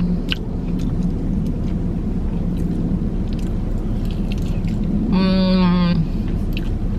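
Chewing over a low steady rumble inside a parked car, with a few faint clicks of biting early on. About five seconds in comes a one-second held 'mmm' of enjoyment.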